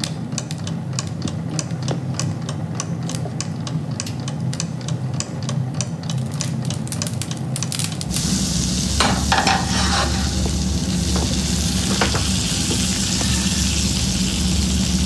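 Food frying in a pan on a stove: dense irregular crackling, then from about eight seconds in a louder, steady sizzle.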